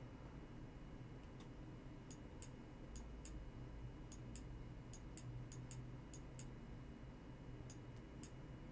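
Faint, irregular computer mouse clicks, a dozen or more at uneven spacing, over a low steady hum.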